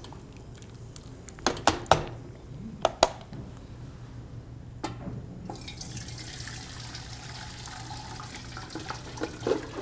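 A few sharp clanks of metal pans being handled, then from about five and a half seconds in a steady splashing pour of cooking water draining from a saucepan of boiled potato and carrot slices through a metal strainer.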